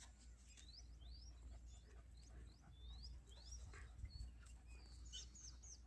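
Faint bird chirps: short, high, quick sweeping notes repeated about twice a second, over a low steady rumble.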